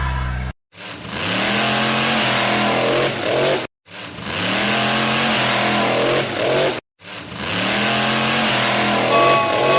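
Vehicle engine revving sound effect, played three times in a row with a brief silent gap between repeats, each time rising in pitch over a loud noisy rush.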